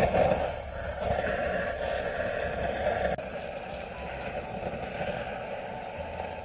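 Handheld butane gas torch burning with a steady hiss, its flame held on a coal briquette to light it; it drops a little in level about three seconds in.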